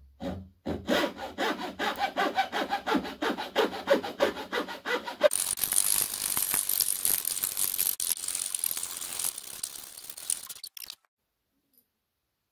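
Hacksaw cutting through a wooden board in quick back-and-forth strokes. About halfway through, the strokes turn faster, with a higher, hissing rasp. The sawing stops abruptly near the end.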